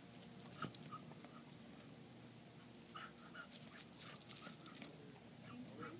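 English Bull Terrier straining and lunging at its leash, panting with a quick run of short, quiet excited sounds about halfway through.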